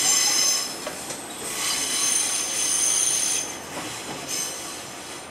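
Train's steel wheels squealing on the curved track through the points, in several high-pitched bursts, the longest lasting about two seconds in the middle, over the rumble of the train running.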